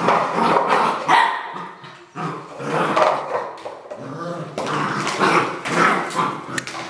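Red merle Border Collie barking repeatedly, in runs of barks with short breaks between them.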